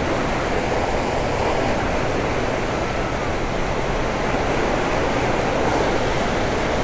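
Steady rush of fast, churning water flowing out below a hydroelectric dam's powerhouse and spillway, a continuous even roar with no breaks.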